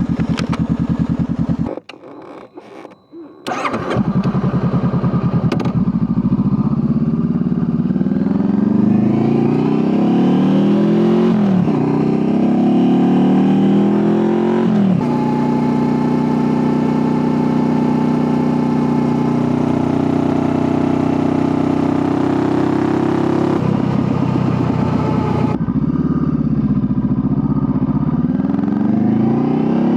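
Honda CBR500R's parallel-twin engine idling, dropping out briefly about two seconds in, then running again and pulling away. The pitch climbs through the gears with upshifts about twelve and fifteen seconds in, holds steady at cruising speed, then changes again near the end and rises once more.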